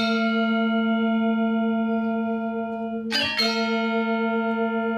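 A deep, bell-like chime struck twice, about three seconds apart, each strike ringing on steadily. It is a sound effect under a section title card.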